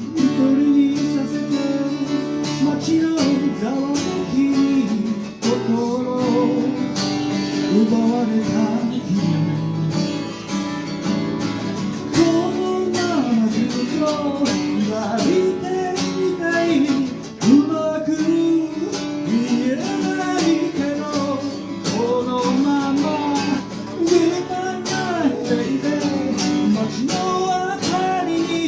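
Acoustic guitar strummed and picked as song accompaniment, with a melody line rising and falling over the chords.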